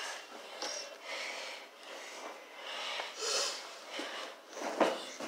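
Noisy breaths and sniffs right against the microphone, coming in rushes about once a second, with a sharper, louder knock near the end.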